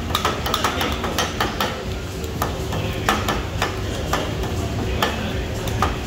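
Metal spatulas clacking and scraping on a teppanyaki steel flat-top griddle: quick, irregular metallic clacks several times a second over a steady low rumble.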